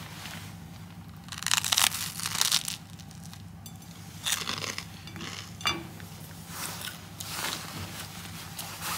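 Crisp toast being bitten and chewed, a few loud crunching bursts with short pauses between.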